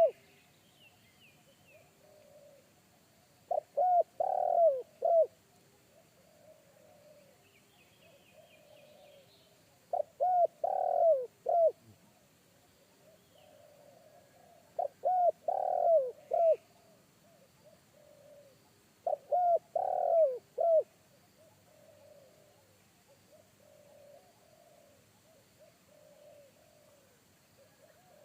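Spotted dove cooing: four loud phrases of several notes, one about every five seconds. Fainter coos from another dove come in between.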